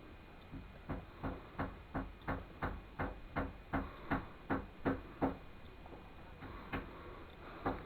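A run of sharp knocks, about three a second for some four seconds, then two more near the end: the furnace's steel bucket shell being struck over and over to free the jar mould from the hardened lining.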